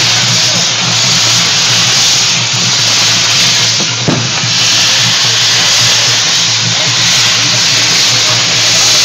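Castillo fireworks tower burning, its fireworks giving a loud, steady hiss as they spray sparks.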